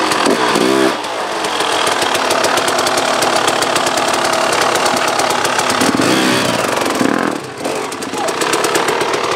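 Enduro dirt bike engine running hard under throttle, with a fast, even firing beat. It eases off briefly about three quarters through, then picks up again.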